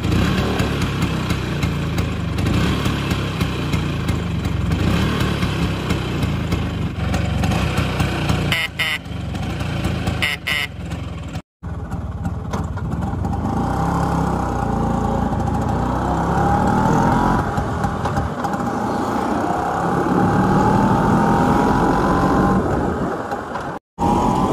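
1988 Bajaj Cub scooter's two-stroke engine running steadily at idle, then, after a cut, running on the road and rising in pitch as it accelerates, with wind noise on the microphone.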